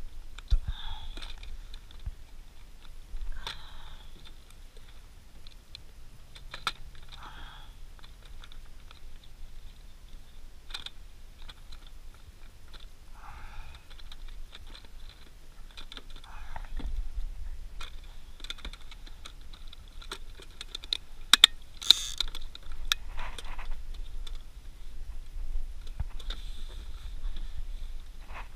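Small plastic clicks, taps and rattles from handling a clear plastic tackle box and a small battery charger while its cable is plugged in and the parts are fitted into the box. The clicks are scattered and irregular, with a few louder sharp clicks about two-thirds of the way through.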